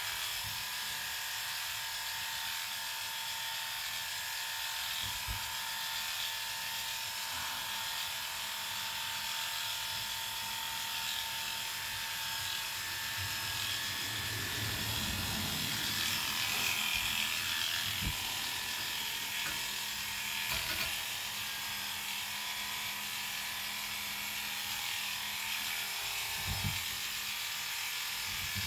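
Cordless electric pet clippers running steadily with a constant hum while clipping an Airedale terrier's coat. There are a few soft low knocks along the way.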